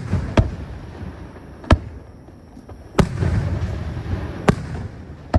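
Fireworks shells bursting: five sharp bangs spaced a second or more apart, with a rumbling crackle trailing the bang about three seconds in.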